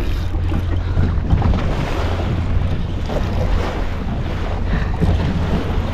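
Wind buffeting the microphone over waves washing against a boat's hull: a steady rumble and hiss.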